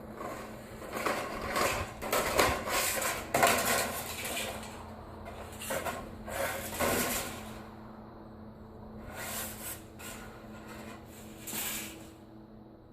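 A metal rain gutter being cut to trim off an extra piece: irregular metallic crunching and clattering, dense for the first seven seconds or so, then a few more strokes later.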